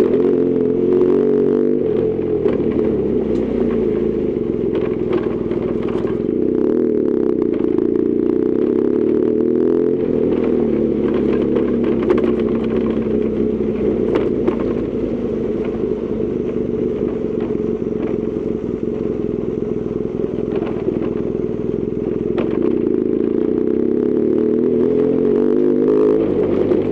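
BMW R1200GS Adventure's boxer-twin engine running under way, its pitch rising and falling with the throttle, with scattered clicks and clatter from the gravel forest road.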